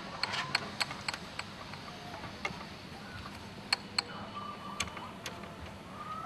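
Scattered sharp clicks and taps from a surveying tripod's legs and clamps being handled while its height is adjusted: a quick cluster in the first second, then single clicks every second or so.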